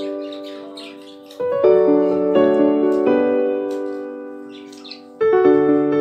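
Piano music: slow chords struck about every four seconds, each ringing and fading away, with faint budgerigar chirps behind it.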